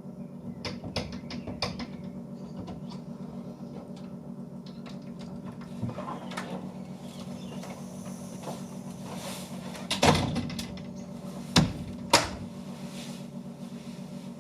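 Steady low electrical hum with a run of quick clicks in the first couple of seconds, then three sharp knocks, like doors or cupboards, about ten, eleven and a half and twelve seconds in.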